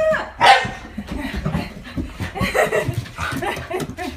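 Shiba Inu whining and yipping in excitement at a greeting: one loud cry about half a second in, then a rapid, irregular string of short high cries.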